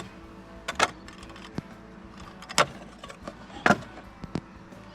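Sharp plastic clacks from a repaired 90 Series Prado console lid being opened and shut on its newly bonded hinge, about half a dozen at roughly one a second, with a loud double clack near the end.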